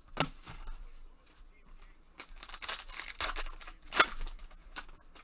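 Foil wrapper of a trading-card pack crinkling and tearing as gloved hands open it, with two sharp snaps, about a quarter second in and about four seconds in.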